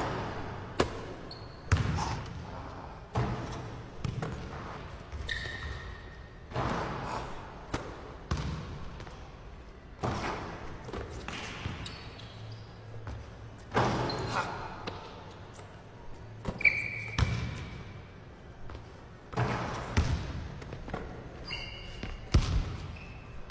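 A basketball being dribbled and bounced on a hardwood gym court, with sharp, echoing bounces coming irregularly about every second or two. Sneakers squeak on the court a few times.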